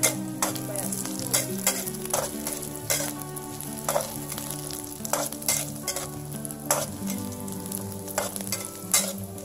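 Shallots, garlic and chilies sizzling in hot oil in a metal wok, stirred with a metal spatula that scrapes and clinks against the pan at irregular intervals, about a dozen times.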